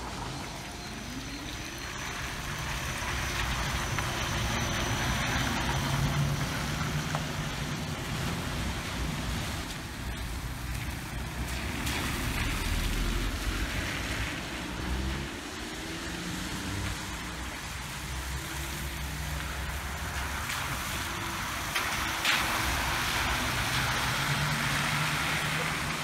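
Street traffic noise as an SOR EBN 11 battery-electric city bus drives past on wet asphalt: tyre hiss over a low electric drive whine that rises and falls in pitch as the bus speeds up and slows.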